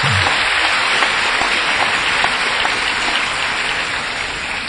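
Audience applauding, a sustained round of clapping that slowly dies away toward the end.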